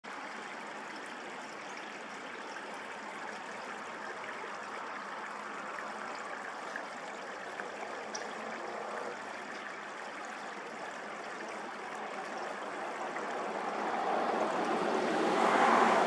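A steady rushing noise that grows clearly louder over the last few seconds.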